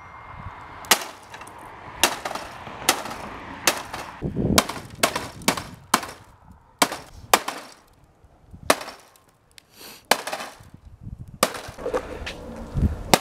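Pitchfork repeatedly striking a smashed flat-screen TV, its broken screen glass and plastic cracking and clattering: more than a dozen sharp hits at an uneven pace, with a short lull past the middle.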